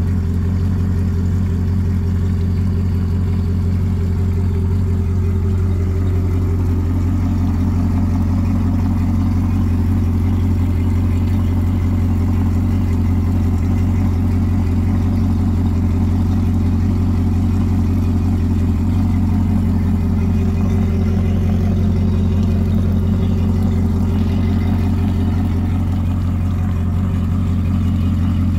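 Yamaha F350 four-stroke V8 outboard running steadily out of the water on a flushing hose, a loud, even engine note with a strong low hum and no revving.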